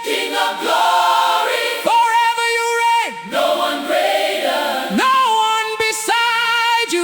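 Gospel choir singing long held chords with gliding slides between notes, a cappella with no drums or bass, in a breakdown of an Afro gospel praise track.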